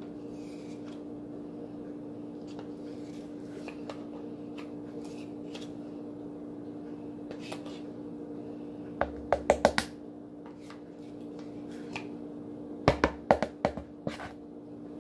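A steady low hum, broken twice by quick runs of sharp clicks and knocks, about five each, a little past halfway and near the end: hands handling a plastic mixing bowl.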